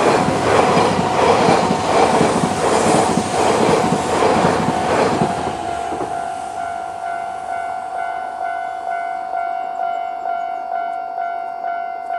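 An E3 series Shinkansen train passing over a level crossing. For the first six seconds it is loud, with its wheels clacking in a steady rhythm, then it fades as it draws away. Through it all the crossing's electronic warning bell rings steadily at a single pitch.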